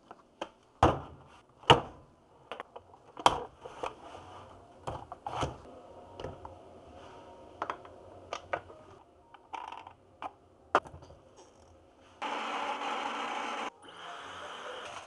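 Irregular sharp clicks and knocks of objects being handled, with a steady hiss lasting about a second and a half near the end.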